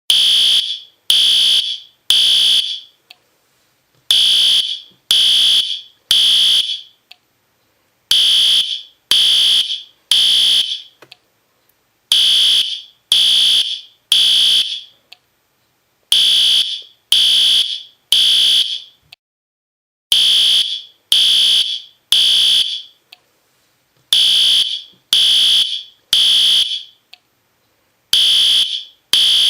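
System Sensor P2R fire alarm horn sounding in the temporal-3 pattern: three loud beeps, then a pause, repeating about every four seconds. This is the standard fire evacuation signal.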